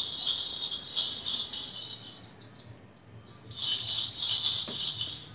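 Small plastic baby rattle toy being shaken in two bouts of quick, high-pitched rattling, each about two seconds long, with a short pause between them.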